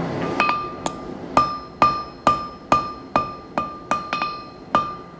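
Hand hammer striking hot 304 stainless steel on an anvil in a steady rhythm, a little over two blows a second, each blow ringing with a clear tone that fades before the next.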